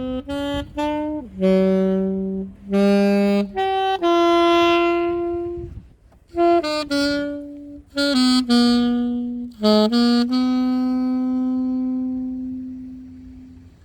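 Unaccompanied alto saxophone with a Vandoren Java A45 mouthpiece playing a slow melody, one note at a time, in two phrases. The second phrase ends on a long held note that slowly fades away.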